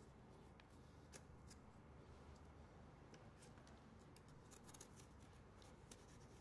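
Near silence over a low steady hum, with faint crisp clicks and scrapes of a small carving knife cutting into pumpkin rind and flesh, a little busier about two-thirds of the way through.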